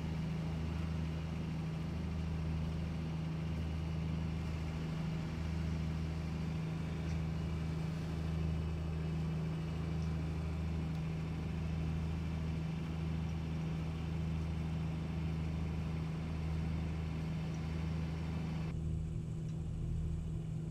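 Steady low drone of the trawler's diesel engine heard from inside the boat while cruising under power, with a slow, regular pulsing underneath. Near the end the higher hiss drops away and only the low engine hum remains.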